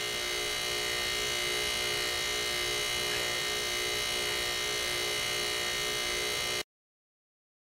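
Old dehumidifier compressor, rigged as a vacuum pump, humming steadily as it sucks oil out of a lawnmower's dipstick tube into a jar. It cuts off suddenly near the end.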